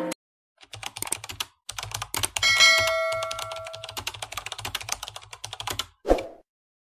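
Rapid keyboard-typing sound effect for on-screen text being typed out letter by letter. A bright bell chime rings about two and a half seconds in, and a short pop comes near the end.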